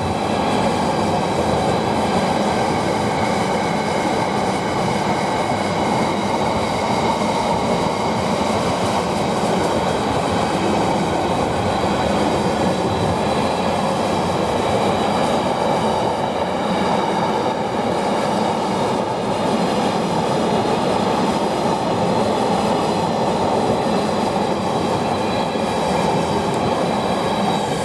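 Freight train wagons, largely empty container flats, rolling steadily past with a continuous rumble of wheels on rail and faint steady high ringing tones above it.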